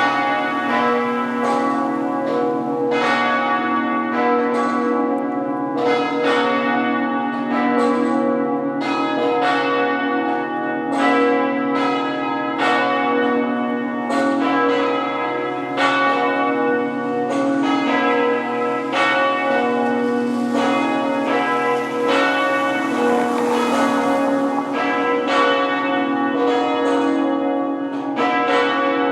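The Quebec cathedral's church bells ringing together half-muffled for Sunday mass. The strokes overlap in a continuous peal over a steady hum of lingering tones. Half-muffling pads one side of each clapper so that open and muffled strokes alternate, the traditional sign of mourning.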